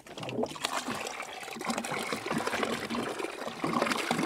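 Water pouring from a plastic jerry can into a plastic tub, a steady splashing stream filling it. It comes in suddenly and then runs on evenly.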